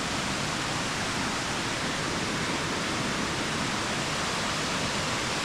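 Waterfall rushing steadily, a constant even hiss of falling water with no breaks.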